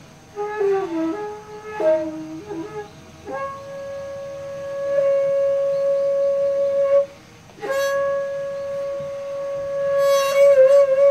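Daegeum, the Korean transverse bamboo flute, played solo. It opens with a few short notes that step about in pitch, then holds one long note. After a breath about seven seconds in, it holds the note again, and near the end the note begins to waver in a wide, slow vibrato.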